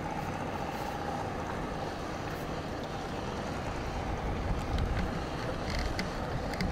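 Wind on the microphone over choppy open water, with a faint steady engine drone from motorboats passing in the distance and a few faint clicks near the end.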